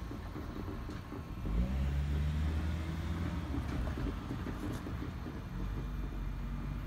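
A low vehicle rumble with a steady hum, which swells about a second and a half in and then holds.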